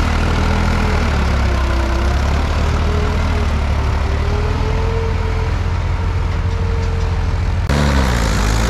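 New Holland 3600-2 tractor's diesel engine running steadily under load as it drags a scraper through sandy soil, its note wavering slightly. Near the end the sound cuts abruptly to another tractor engine close by, a Mahindra 585 DI pulling its own scraper.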